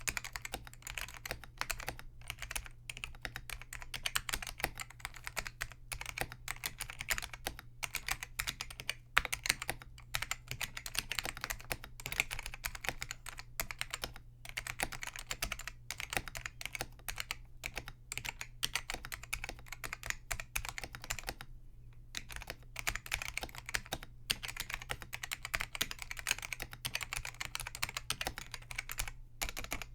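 Continuous fast typing on a Focus FK-2001 keyboard with Hua-Jie T1 Alps-clone switches, their click leaves removed so the keys strike without a click but with a strong tactile bump. A dense, steady patter of keystrokes, with a brief pause about two-thirds through.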